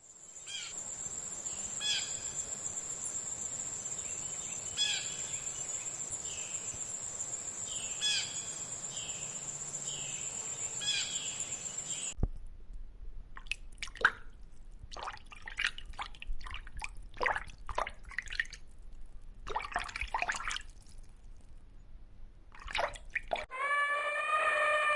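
A bird calling with short falling chirps every two to three seconds over a steady high-pitched whine. About halfway through, this gives way to irregular clicks and crackles, and near the end a different, strongly pitched animal call starts.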